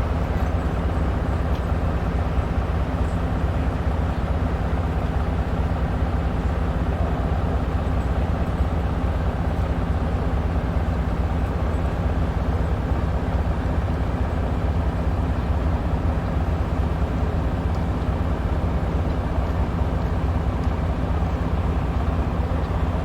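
Steady engine drone with a constant low hum, unchanging throughout.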